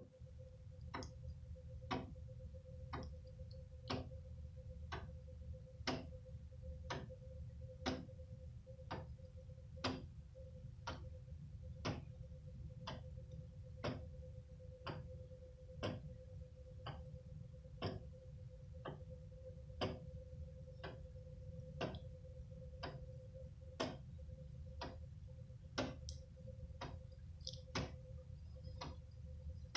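Wooden-geared weight-driven pendulum wall clock, a Legacy built from woodengearclocks.com plans, ticking steadily about once a second over a faint steady hum.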